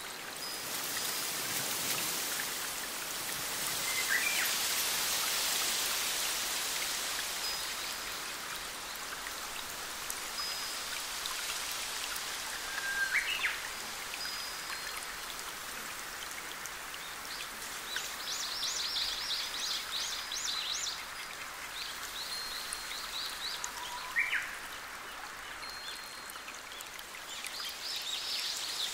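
Steady rushing water of a forest stream and small cascade, with birds calling over it: a short rising call about every eleven seconds, a rapid trill of high notes around two-thirds of the way through, and occasional thin high whistles.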